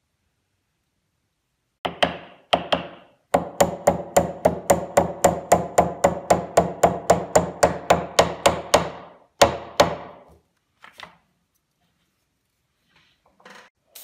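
Hammer blows driving a redheart wedge into the slotted tenon of an African blackwood handle, locking it into a redheart mallet head. Two single blows, then a steady run of about four strikes a second for some six seconds, two more blows, and a couple of faint taps near the end.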